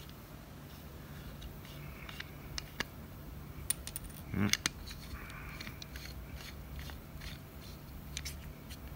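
Faint clicks and light metal scrapes from a milled aluminium flashlight being handled as its threaded tail cap is unscrewed and screwed back on, with one short louder sound about four and a half seconds in.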